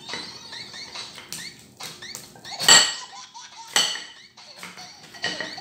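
Table knife cutting crispy fried pork leg on a ceramic plate: small scrapes and clicks of the blade, with two loud clinks against the plate, about two and three-quarter seconds and nearly four seconds in, each ringing briefly.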